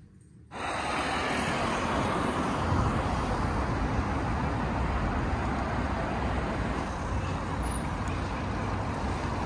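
Steady road traffic noise, an even rumble and hiss of passing cars, cutting in suddenly after a brief hush.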